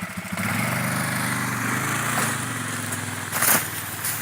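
Small engine revs up about half a second in and then runs steadily. A short clatter comes about three and a half seconds in.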